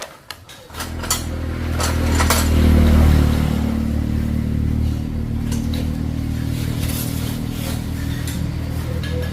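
Small motorcycle engine starting about a second in, briefly running louder as it is revved, then running steadily.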